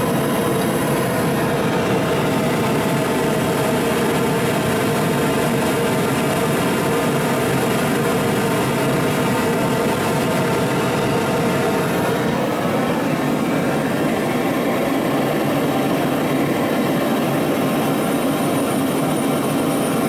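Homemade propane venturi burner, a steel tube with a 0.8 mm welding-tip gas nozzle, burning with a loud, steady rushing noise. Its tone shifts slightly about twelve seconds in.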